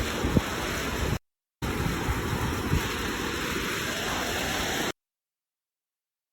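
Ocean surf: a steady rush of waves. It drops out briefly just after a second in and cuts off suddenly about five seconds in.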